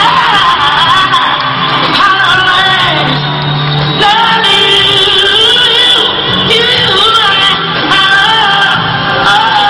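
A woman singing live with musical accompaniment, her voice sliding through long held notes.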